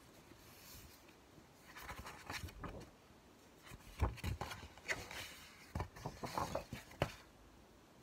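Hardcover book being handled as its paper dust jacket is slipped off: paper rustling and light taps and knocks, starting about two seconds in, with the sharpest knocks about four and seven seconds in.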